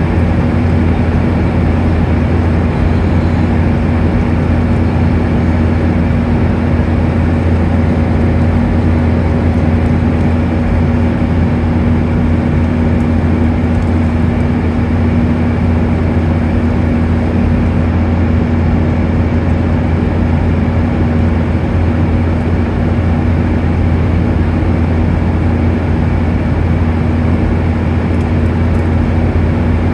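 Steady cabin noise inside a Boeing 737-800 in flight, heard at a window seat over the wing: the constant rush of air and the drone of its CFM56-7B turbofan engines, with a low hum and a steady tone running through it.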